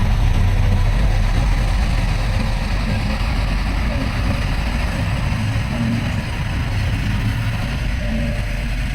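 Heavy diesel engine of earthmoving machinery, a bulldozer or dump truck, running steadily with a low rumble that eases slightly in loudness after the first few seconds.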